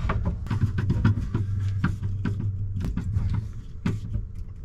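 Hand work on boat wiring: a run of small clicks and knocks as a wire and a screwdriver are handled at a small electrical terminal block, over a steady low hum.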